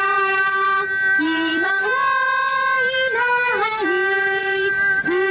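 Singing of a slow song, with long held notes that slide from one pitch to the next.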